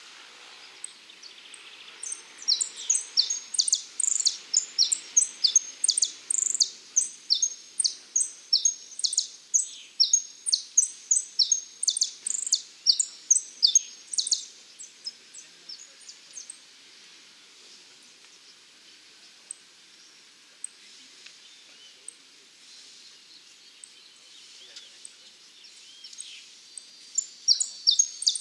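Saffron finch (dorado) singing a fast run of sharp, high chirps, about three a second, from about two seconds in to about fourteen seconds. It falls quiet, then starts singing again near the end.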